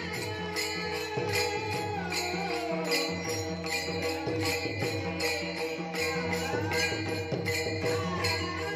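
Varkari bhajan: a group of young voices chanting in unison while brass hand cymbals (taal) are clashed in a steady beat, about three strikes a second.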